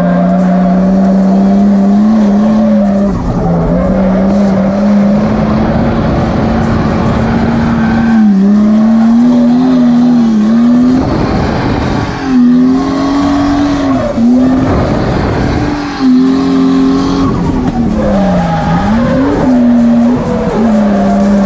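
Nissan 180SX's turbocharged engine heard from inside the cabin while drifting, held high in the revs with tyres squealing. The revs dip and climb back several times, mostly in the second half.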